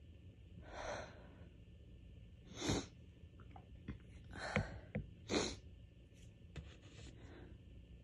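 Allergy sneezing fit: a gasping in-breath, then three loud sneezes over about three seconds, the second after a brief build-up breath.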